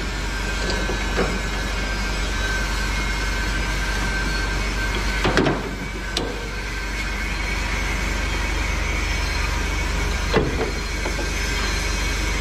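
A Hino 300 truck's diesel engine runs steadily behind a few short metal knocks from the steel folding ramp plates at the tail of a Kyokuto self-loader bed as they are handled by hand. The loudest knock comes about five seconds in, with others about a second later and near ten seconds.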